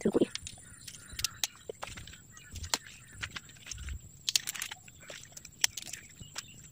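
Hands stripping the leaf bases off an Aglaonema stem cutting: irregular sharp snaps and cracks with a light rustle of leaves, after a dull thump at the very start. A steady high thin tone runs underneath.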